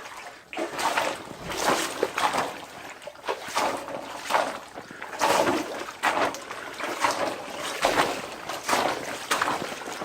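Standing floodwater in a crawlspace sloshing and splashing in repeated, uneven surges as someone crawls through it.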